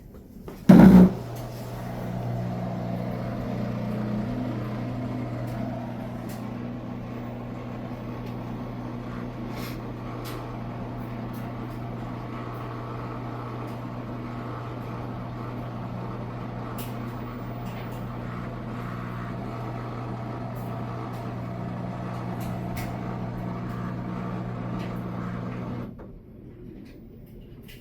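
Washing machine at the end of its cycle: a loud clunk, then a steady mechanical hum of its motor or pump at a fixed pitch that cuts off suddenly near the end.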